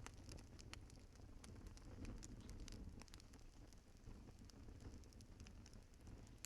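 Wood fire crackling faintly in a fireplace: scattered sharp pops and ticks over a low, steady rumble.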